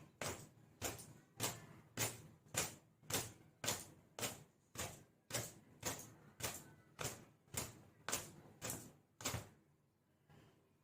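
Long wet hair being shaken out in sharp, rhythmic swishes, about two a second, stopping after about nine seconds.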